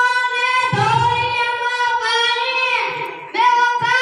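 A child singing into a microphone, holding long notes, with a falling phrase about three seconds in and a brief breath before the next line.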